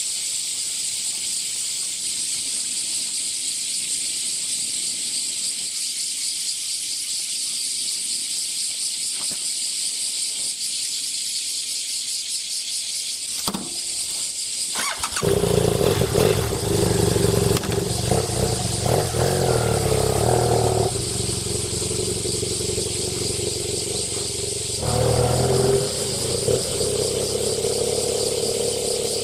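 Cicadas buzzing steadily and high-pitched; about halfway through, a BMW F800GS's parallel-twin engine starts and is revved a few times, then settles to a steady run, with another short rev a few seconds before the end.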